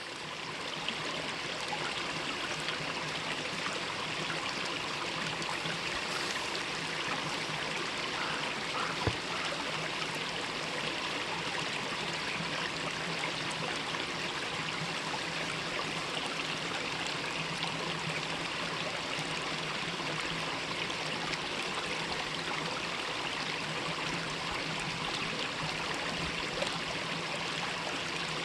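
Mountain stream flowing over rocks: a steady, even rush of water with some trickling, fading in at the start.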